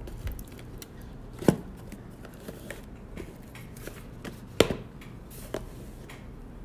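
Hands handling and opening a sealed box of trading cards: scattered light clicks and taps, with two louder sharp knocks, one about a second and a half in and one near five seconds.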